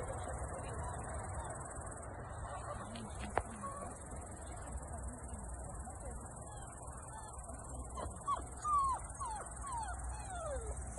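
Steady high-pitched buzz of insects in the roadside grass. About eight seconds in comes a run of short, high, falling whimpers from a young puppy, one every few tenths of a second.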